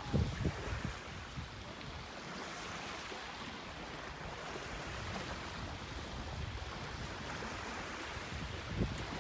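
Small waves washing onto a sandy shore in a steady hiss, with wind buffeting the microphone in low rumbles during the first second and again near the end.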